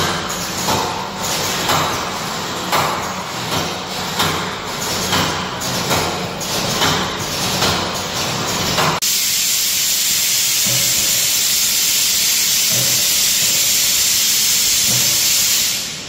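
A rhythmic pulsing, about one and a half beats a second, for the first nine seconds. Then a loud steady hiss starts suddenly and runs about six seconds before fading out near the end: pressure venting from a food retort sterilizer machine.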